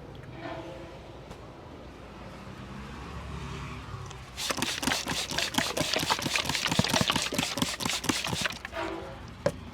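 Rapid percussive hand tapping of a barber's head massage: many quick slaps a second for about four seconds, starting a little under halfway in and stopping shortly before the end. A low rumble of street traffic runs beneath.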